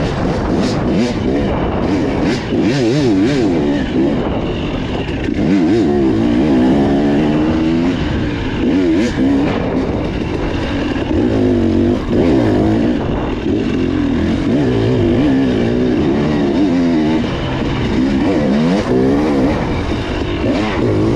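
Motorcycle engine running under riding load, its pitch rising and falling again and again as the throttle is opened and closed.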